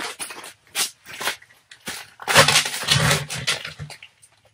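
Handling and movement noise: a run of short clicks and rustles, then, about two seconds in, a louder stretch of rustling and crunching lasting nearly two seconds, from clothing and gear as a person bends down on an ice floor.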